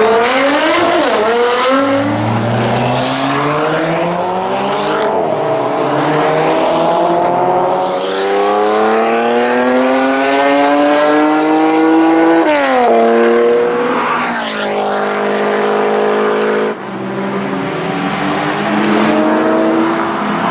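Performance car engine revving hard under acceleration, its pitch climbing in long pulls. The pitch drops abruptly at gear changes, and the sound cuts briefly about 17 seconds in before picking up again.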